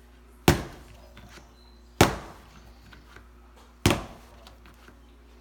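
Slab of clay thrown down flat onto a worktable three times, each a sharp slap about one and a half to two seconds apart. The throwing stretches and compresses the clay into a thin slab.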